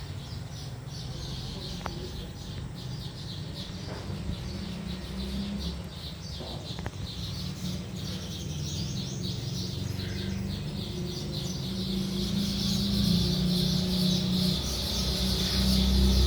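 Small birds chirping rapidly and continuously, a dense chatter of many short calls that grows louder toward the end, over a steady low rumble.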